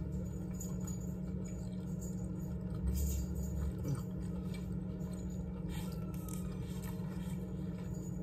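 A steady low hum in the room, over which a person chews a mouthful of sandwich with soft mouth sounds and a few small clicks and rustles of a napkin being handled.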